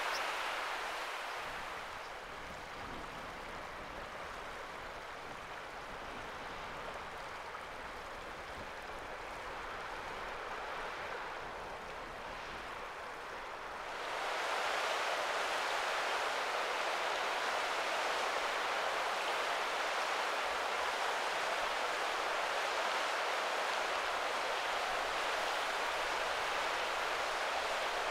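Shallow rocky mountain stream running steadily over stones; about halfway through the rush becomes suddenly louder and fuller.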